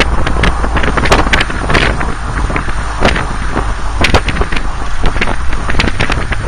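Wind buffeting the microphone of a camera on a moving open jeep, in irregular gusts over a steady low rumble of engine and tyres on the road.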